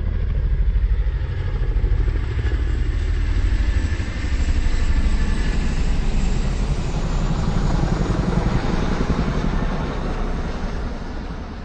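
A vehicle engine running, a low, rapidly pulsing drone that swells and eases and begins to fade near the end.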